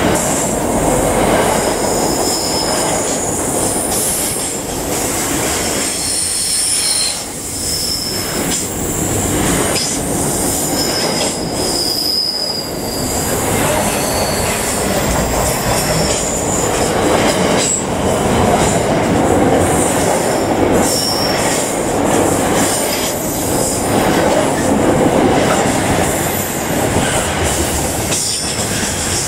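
Freight train's container wagons rolling past close by: a steady loud rumble of wheels on rail, with short high-pitched wheel squeals coming and going throughout.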